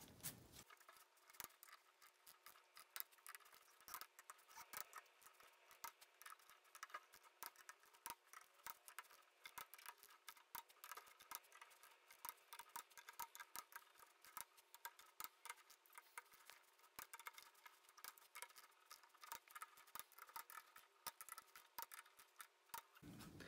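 Faint ratchet-head wrench clicking in quick runs of small ticks as it runs down and torques the bolts of a ZF6HP26 transmission valve body to 80 inch-pounds.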